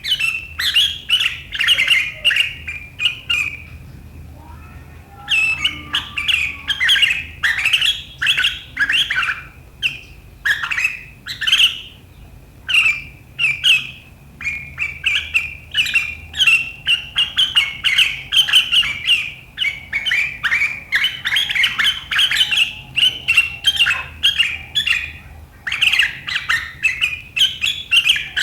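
Sooty-headed bulbul (kutilang) in full 'riwikan' song: rapid runs of sharp, chattering calls, broken by short pauses about four seconds in and around thirteen seconds.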